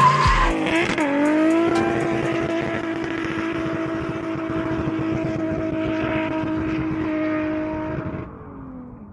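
Car engine revving up about a second in, then held at steady high revs for several seconds before the revs drop off near the end.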